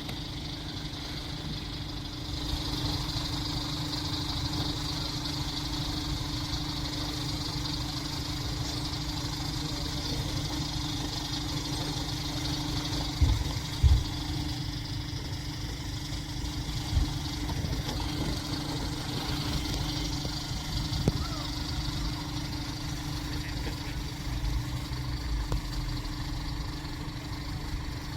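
A steady engine hum with a low rumble, with two short thumps about halfway through.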